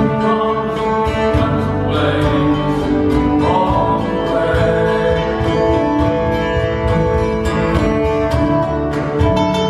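Live acoustic folk band playing: a trumpet carries a sustained melody over a fiddle and busily strummed mandolin and guitar.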